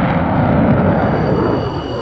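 Twin Pratt & Whitney F100 turbofans of an F-15C Eagle flying past, a loud rushing jet noise whose tone sweeps as it passes. A thin high whine comes in near the end.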